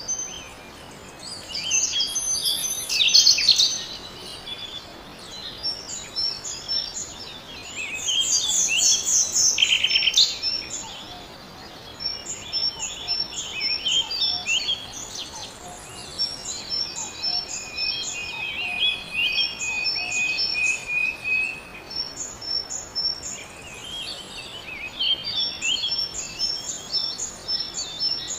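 Several birds chirping and singing at once: many short, rapidly repeated high notes overlapping, with louder flurries of song a few seconds in and again about a third of the way through, and one long steady note held for several seconds past the middle.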